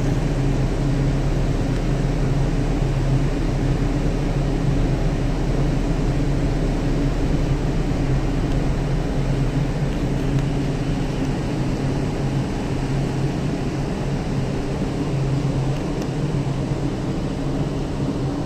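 A cargo ship's machinery running with a steady low drone and a constant hum.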